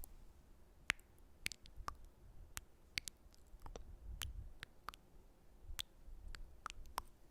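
Close-miked ASMR mouth sounds: irregular sticky, wet clicks and pops, about two a second.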